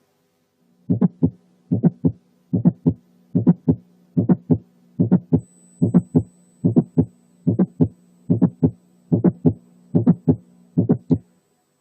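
Recorded heart sounds with a mid-systolic click between the first and second heart sounds, and no murmur, beating about 75 times a minute over a steady low hum. It is the click heard in mitral valve prolapse.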